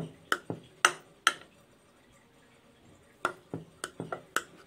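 Knife cutting set semolina barfi in its tray, the blade clicking against the tray: a few sharp clicks, a pause of about two seconds, then another run of clicks.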